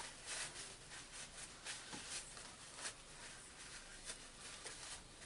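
Faint, irregular scratching and rubbing as the gears of a cordless drill's gearbox are cleaned of dust.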